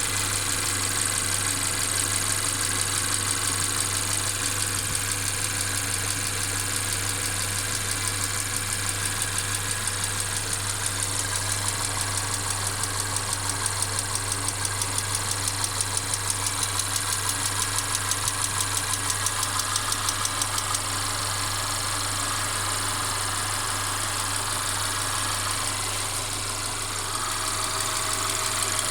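Mercedes-Benz CLA 250's turbocharged four-cylinder engine running, with an even clacking a few times a second that stops about two-thirds of the way in and comes back near the end. The owner reports this intermittent clacking, along with a steady rattle, as abnormal noises on a car that stutters when accelerating.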